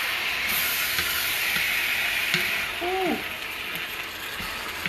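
Shrimp fried rice sizzling in a hot stir-fry pan just after soy sauce has gone in, the sizzle easing a little about halfway through, with a few light clicks.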